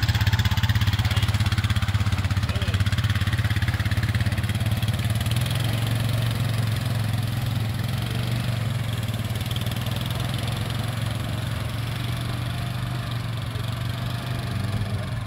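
4x4 ATV engine running steadily at low revs as the machine drives off through shallow water, its hum easing slowly as it moves away.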